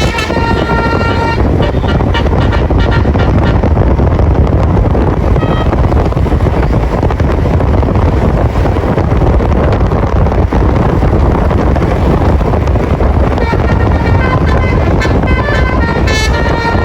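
Bus telolet basuri multi-tone horn playing a stepping tune for about the first second and a half, then again over the last few seconds. In between, loud steady road noise.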